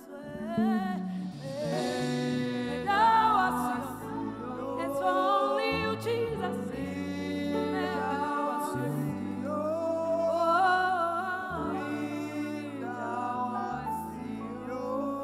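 Gospel worship song: a sung vocal line over instrumental accompaniment with held low bass notes.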